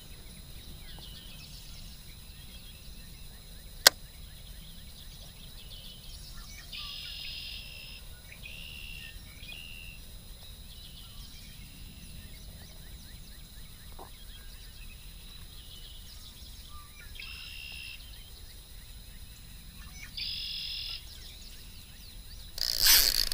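Birds calling now and then, each call about a second of shrill, buzzy notes, over quiet outdoor background noise. A single sharp click comes about four seconds in, and a sudden loud rush of noise comes just before the end.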